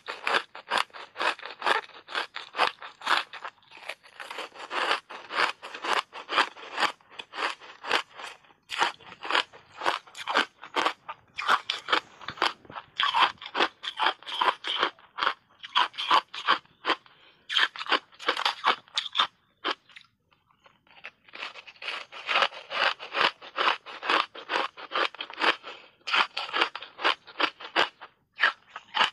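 Block ice, coated in matcha milk powder, being bitten and chewed, with rapid, continuous crunching. The crunching breaks off briefly about 20 s in, then resumes.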